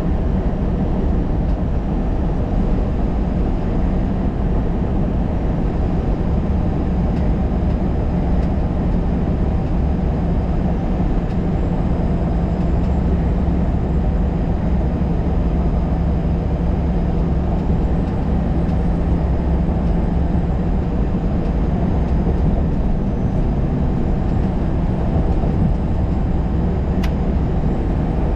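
Steady drone of engine and tyre noise heard inside the cab of a vehicle cruising at highway speed, with a constant low hum and no changes in pace.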